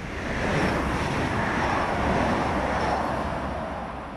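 Train running into a station: a broad rumble with rail noise that swells over the first second, holds, and eases off near the end. Faint high squeals come and go above it.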